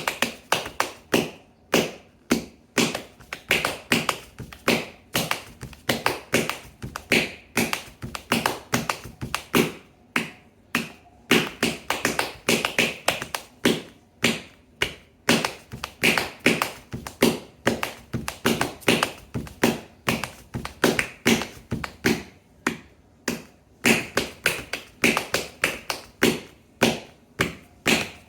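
Kathak footwork: a dancer's feet striking the floor in quick, uneven runs of taps and stamps, several a second.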